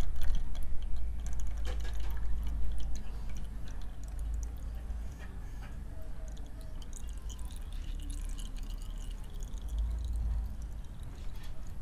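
Old engine oil from a Honda PCX160 scooter running out of the drain hole in a thin stream, trickling and dripping into a plastic bucket. This is the last of the used oil still draining out; it is louder in the first few seconds, then fainter.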